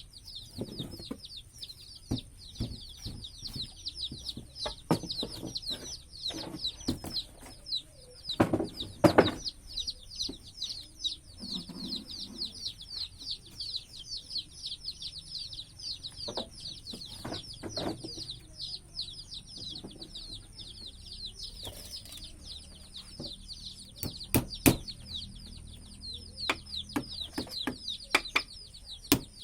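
A bird chirping fast and without pause, several short high falling notes a second, over a faint steady high whine. Scattered knocks and taps come through, loudest about eight to nine seconds in and again near twenty-four seconds.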